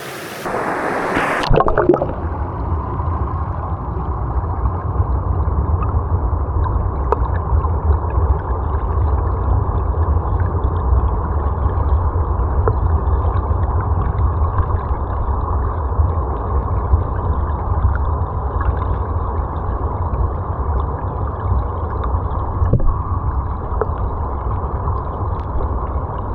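Creek water heard through an underwater camera lowered into a stream: a steady, muffled rushing and gurgling with the high sounds cut off. About a second and a half in, a brief brighter noise gives way to the muffled sound as the camera goes under.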